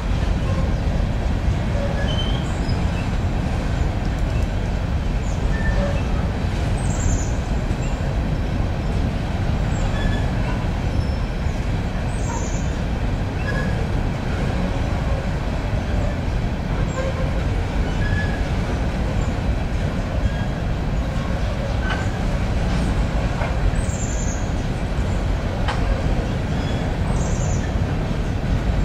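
Loaded coal hopper cars rolling slowly across a steel railroad bridge: a steady rumble of wheels on rail, with brief high squeaks now and then.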